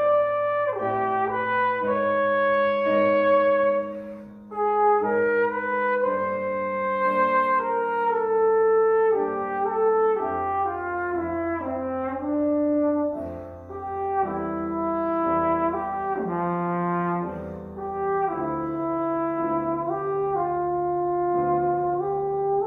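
Tenor trombone playing a lyrical solo melody in phrases, with held piano chords underneath and a quick run of notes about two-thirds of the way through.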